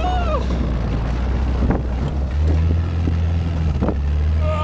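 Engine of a vehicle towing a snow tube running with a steady low drone, rising slightly in pitch about two seconds in as it picks up speed, with wind buffeting the microphone and a couple of short knocks.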